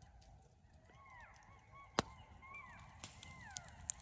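Faint chorus of golden jackals giving many overlapping short, wavering yelps. A few sharp clicks sound, the loudest about two seconds in.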